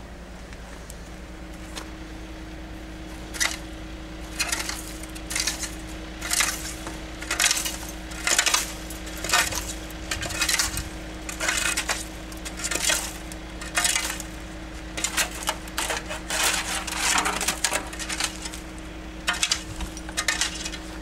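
Long-handled tool scraping and raking through burnt bonfire debris on tarmac, with clinks of broken glass and metal scraps. The strokes come about once a second, starting a few seconds in.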